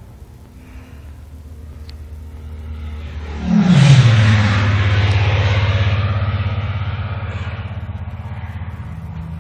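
Recording of a propeller aircraft flying past, played from an exhibit loudspeaker: the engine drone builds, then about three and a half seconds in it passes with a steep drop in pitch and fades away slowly.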